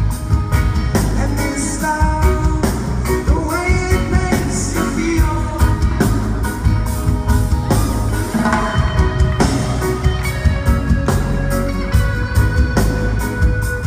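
Reggae band performing live: a sung vocal line over deep bass, a steady drum beat and guitar.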